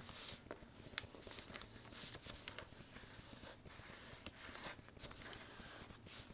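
Sheet of paper being folded and creased by hand: faint rustling with many short, sharp crackles as the folds are pressed down.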